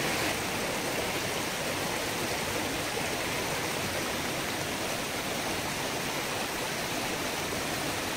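Shallow, rocky mountain stream flowing over stones: a steady, even rush of water.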